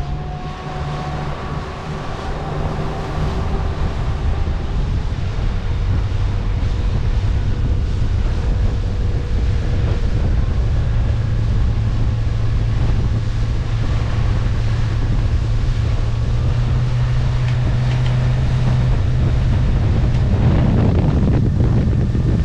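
Wind buffeting the microphone on a moving boat: a continuous low rumble, with a steady low hum underneath.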